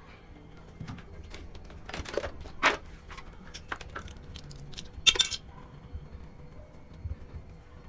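Scattered clicks, knocks and light rattles of computer cables and plugs being handled and unplugged, with the loudest rattle about five seconds in.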